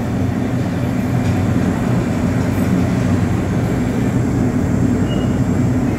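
Steady low hum and rumble of a large indoor space's background noise, most like ventilation or air-conditioning running, with no distinct events.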